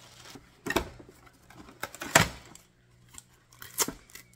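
Plastic parts of an Aerogarden Harvest 2.0 hydroponic garden, its grow deck and grow bowl, being handled: a few sharp clicks and knocks, the loudest about two seconds in.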